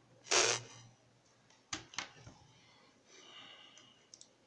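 A short, harsh, distorted voice-like burst, then two sharp clicks about a second later and a faint muffled voice near the end. These are the kind of crackles and stray voice repeats reported from the Discord audio fault on this Linux PC.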